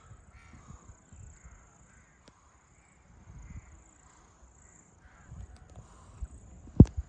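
Outdoor ambience: a steady high-pitched hiss or drone throughout, with uneven low rumbles on the microphone, and a single sharp knock near the end.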